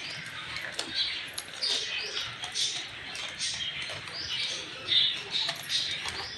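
Packaging crinkling and rustling in quick, irregular bursts as a packet is opened and handled.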